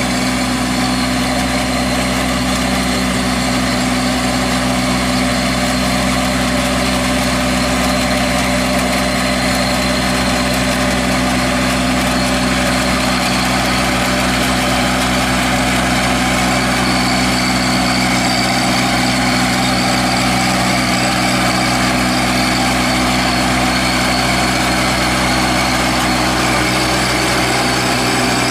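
Compact Kubota tractor's diesel engine running at a steady, even speed as the tractor works slowly between crop rows.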